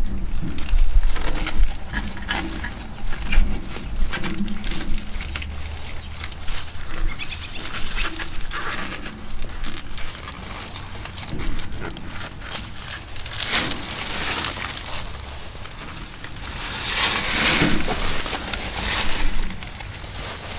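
Handling noise from fitting foam pipe insulation onto an air conditioner's copper line: dry leaves crackling and rustling under the hands, with scattered small clicks. A short louder rustle comes about thirteen seconds in and a longer one near the end.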